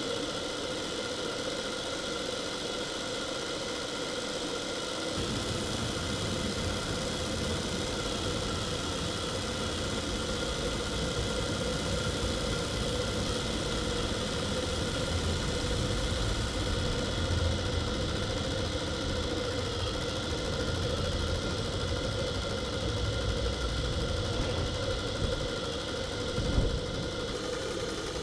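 Monahan Heron twin-cylinder, double-acting slide-valve model steam engine running on steam just after start-up, a steady mechanical running sound with a deeper running rumble coming in about five seconds in. The engine is still cold, so the entering steam condenses to water in the cylinders.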